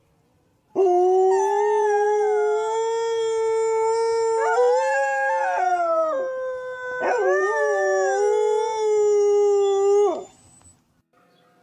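A dog howling: one long howl of about nine seconds that steps up in pitch partway through, wavers, and then stops abruptly.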